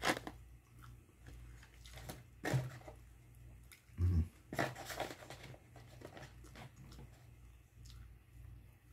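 Close-up eating sounds of French fries being chewed: soft clicks and mouth noises, with two short, louder low sounds about two and a half and four seconds in.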